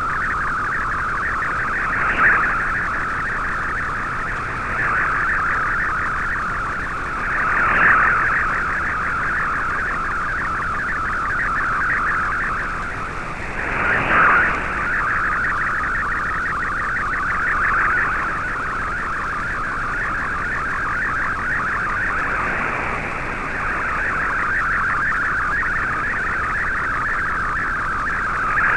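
MFSK64 digital picture transmission received on shortwave: a dense, warbling stream of rapidly changing tones in a narrow mid-pitched band, with a few brief swells of static. It is an image being sent over the air and decoded line by line.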